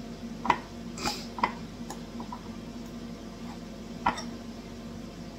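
A fork clinking against a mixing bowl a few times as the contents are stirred, four short sharp clicks spread unevenly through the stirring, over a steady low hum.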